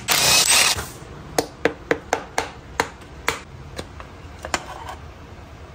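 A loud rushing noise that cuts off about a second in, then a run of about ten sharp clicks at uneven intervals from hand tools working on the bolts of a motorcycle engine's timing cover.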